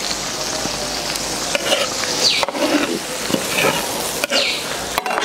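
Braising sauce simmering in a large wok while a metal ladle scoops it and pours it back over the fish and tofu, with a few light knocks of the ladle against the wok.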